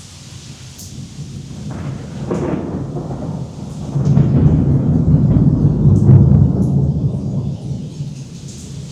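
A long roll of thunder that builds from about a second in, with a crackle near two and a half seconds, swells to its loudest between about four and seven seconds, then fades. Steady rain hisses underneath.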